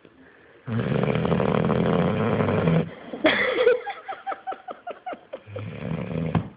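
A pit bull snoring loudly: a long rasping snore starting about a second in, then a rattling run of quick clicks, and another snore near the end.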